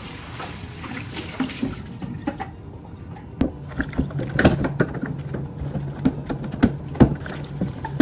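Tap water running into a stainless steel sink over a clear plastic fridge drawer. From about three seconds in, a sponge scrubs the wet plastic drawer, with sharp knocks and clatters of plastic against the sink.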